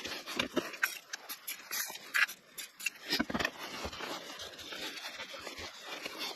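Shop rag wiping out the empty bearing bore of a motorcycle's aluminium front wheel hub: short, uneven rubbing strokes of cloth on metal, with a few light scrapes.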